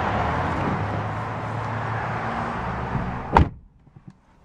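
Steady outside background noise with a low hum, then the second-row side door of a 2011 Chevrolet Tahoe pulled shut with one solid slam a little over three seconds in, cutting off the outside noise.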